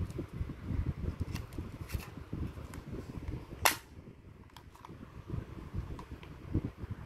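Toy blaster pistol firing once with a single sharp pop about halfway through, with a few fainter plastic clicks and handling rustle around it.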